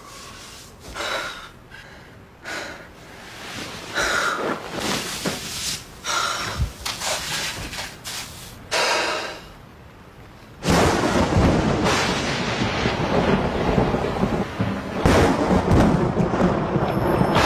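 Thunderstorm: rain with rumbles of thunder, coming in separate swells at first, then turning into a loud, steady downpour about ten seconds in.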